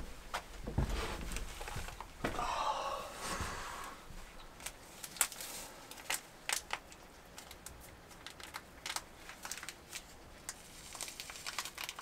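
Rustling and crinkling with many scattered sharp clicks, and a brief wavering noisy sound about two and a half seconds in.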